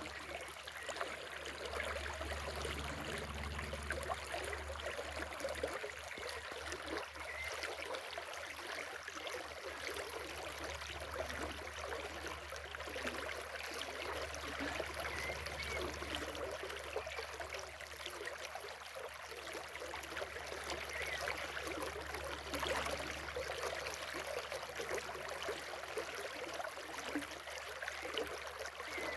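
A river or stream flowing over stones, a steady rushing and trickling of water.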